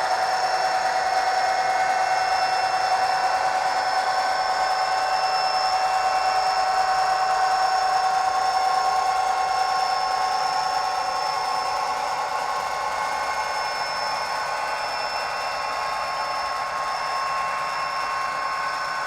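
Synthesised EMD 20-cylinder diesel engine sound of an HO scale KATO SD45 locomotive, played by its ESU LokSound decoder through the model's small speaker: a steady engine drone with a thin, tinny edge.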